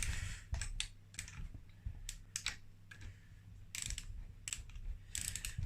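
Irregular small metallic clicks of a wrench and socket working the cylinder head bolts of a Yamaha YZ80 engine as they are run down, over a faint steady low hum.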